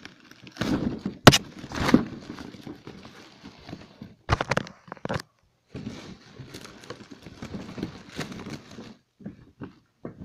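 Plastic bag and bubble wrap rustling and crinkling as a packed item is handled and pulled out of a cardboard shipping box, with a few sharp knocks and clicks, the loudest about a second in and a quick cluster around four seconds in.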